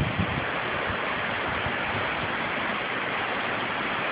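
Strong storm wind rushing steadily through a willow tree and the backyard, with low rumbling from the wind hitting the microphone.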